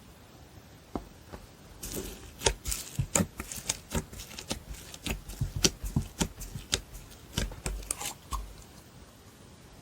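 Slime being pressed and worked by hand, giving a quick run of sharp clicking pops that starts about two seconds in and stops near the end.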